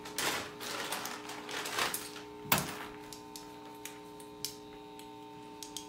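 Rustling and crinkling of packing material for about two seconds, a sharp knock about two and a half seconds in, then a few light clicks, all over a steady electrical hum from the plugged-in guitar rig.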